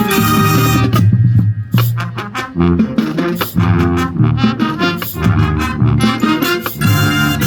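High school marching band playing, with brass and percussion. A held brass chord cuts off about a second in, followed by short, punchy accented hits, and a new sustained chord swells near the end.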